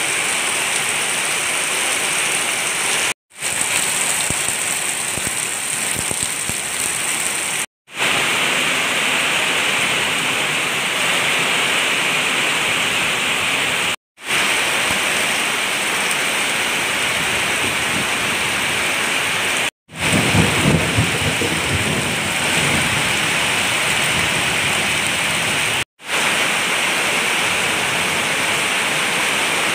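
Very heavy rain pouring steadily onto wet ground, puddles and leaves, broken by several brief silent gaps where the takes are cut together. A low rumble swells in a little over two-thirds of the way through.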